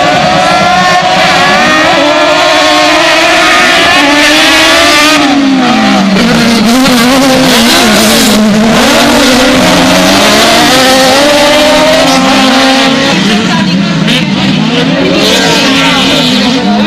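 Several autocross race cars running hard on a dirt track, their engines overlapping and repeatedly revving up and dropping in pitch.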